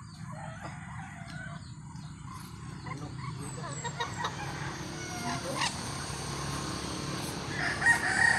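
Backyard chickens clucking in short scattered calls over a steady low hum, with a louder rooster crow near the end.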